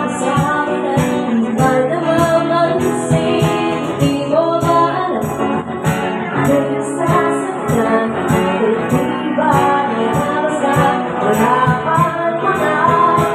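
Live acoustic music played through a small PA: singing over acoustic guitar, with light percussion keeping a steady beat of about two to three ticks a second.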